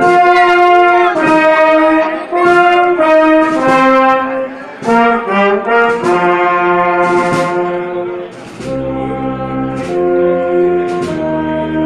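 Brass procession band playing a Holy Week march: trumpets and trombones hold the melody in stepped notes, over regular sharp percussion strikes. About eight and a half seconds in, the music drops to a softer passage carried by the low brass.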